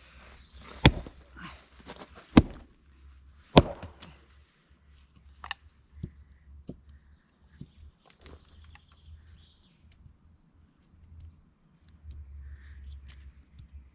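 Three loud, sharp knocks about a second and a half apart, then a small bird chirping over and over in short, high, falling notes, over a low wind rumble.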